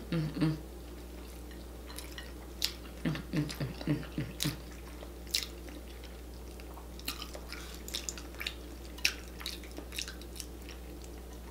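Close-up wet eating sounds: chewing and lip smacks with sharp sticky clicks, a few each second, as sauce-coated fingers pick through soft, sauce-soaked food.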